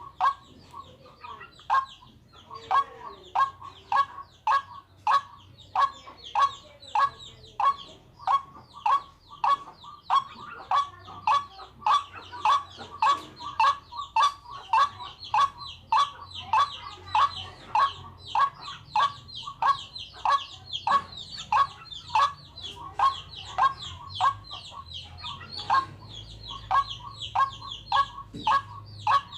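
Waterhen calling: a long, even string of short, harsh notes, about one and a half to two a second, kept up without a break.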